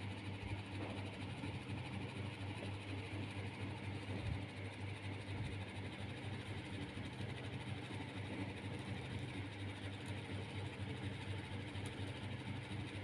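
A steady low hum with an even hiss over it, and a faint knock about four seconds in.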